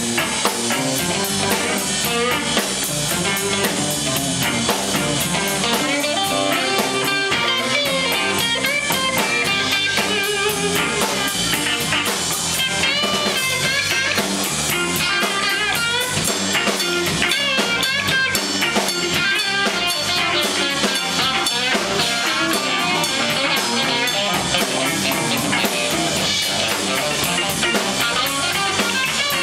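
Blues band playing loud live music: an electric guitar lead with many bent notes over a full drum kit and bass, with no singing.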